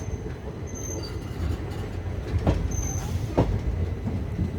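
Passenger express train rolling into a station: a steady low rumble with two sharp clacks of wheels over rail joints partway through.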